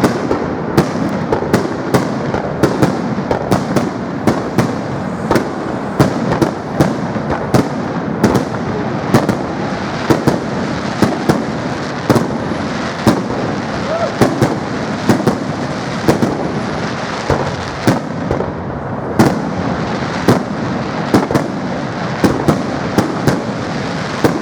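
Fireworks display: a quick, continuous run of sharp bangs from bursting fireworks, about one to two a second, over a steady wash of noise.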